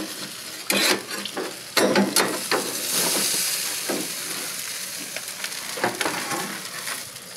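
A hot smoked brisket sizzling as it is slid off a smoker's metal grate with a steel spatula and tongs. Sharp clicks and scrapes of the steel utensils on the grate come over the sizzle, which is strongest about three seconds in and then fades.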